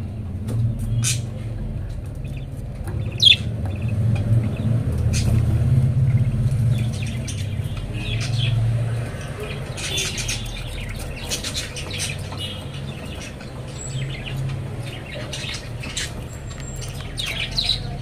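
Budgerigars chirping and squawking in short, irregular calls, over a steady low hum.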